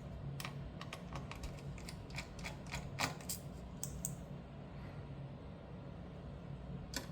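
Irregular light clicks and taps of a screwdriver and small screws being worked out of a graphics card's metal backplate, thickest in the first four seconds and picking up again near the end, over a steady low hum.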